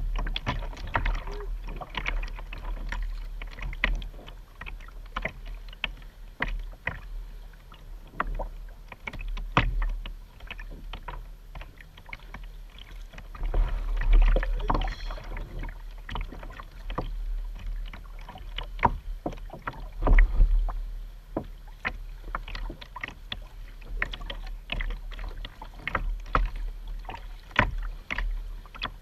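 Double-bladed kayak paddle dipping and pulling through the water, with irregular splashes and water drips pattering onto the plastic hull of a sit-on-top kayak. A couple of louder low rumbles come near the middle.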